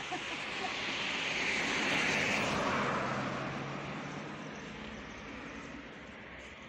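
A road vehicle passing by: tyre and road noise swells to a peak about two seconds in, then fades away.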